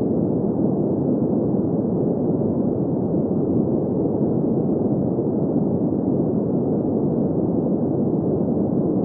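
Steady green noise: an even, muffled rushing sound with its weight in the low middle and no treble, unchanging in level.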